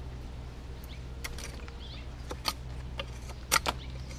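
LT Wright GNS knife shaving green strawberry guava wood: a series of short, sharp scrapes, most of them in the second half, as the blade cuts through the knots.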